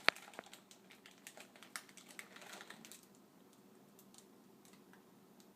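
Chocolate chips being sprinkled into a baking dish of brownie batter: a patter of small light clicks and taps, one sharper click right at the start, thinning out after about three seconds.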